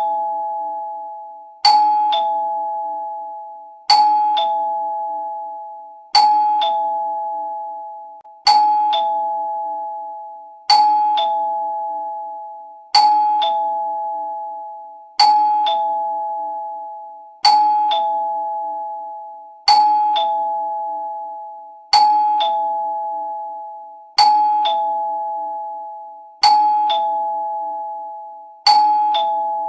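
Two-tone ding-dong doorbell chime ringing over and over, about once every two and a quarter seconds. Each time a higher note is struck, then a lower one about half a second later, and both ring out and fade.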